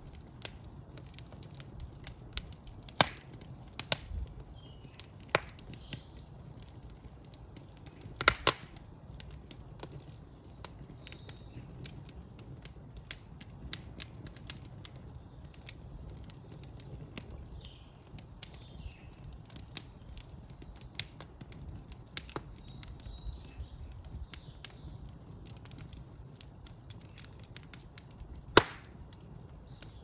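Wood fire of split logs burning in a brick fireplace: irregular crackling with sharp pops, the loudest near the start, about eight seconds in and near the end, over a low steady rumble of the flames.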